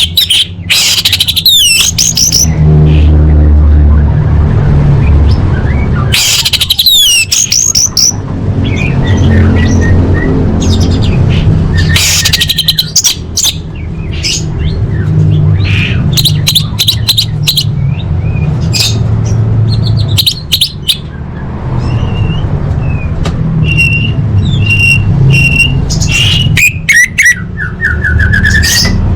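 Orange-headed thrush (anis merah) singing: several bursts of rapid, varied high phrases with pauses between them, and a run of repeated short notes near the end. A steady low hum runs underneath.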